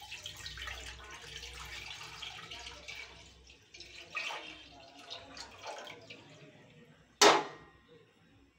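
Milk being poured from a steel pan into a heavy steel kadai, a steady splashing pour that thins out and trickles off after about four seconds. One sharp knock about seven seconds in.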